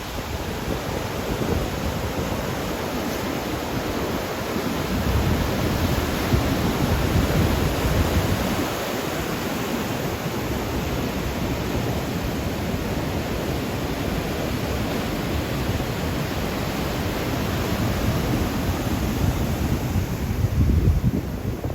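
Ocean surf breaking in a steady wash, with wind buffeting the microphone in stronger gusts about a quarter of the way in and again near the end.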